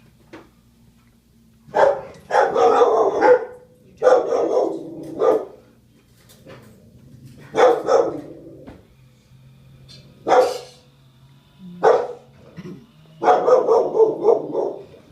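A dog barking in repeated bouts, some single barks and some quick runs, over a faint steady low hum.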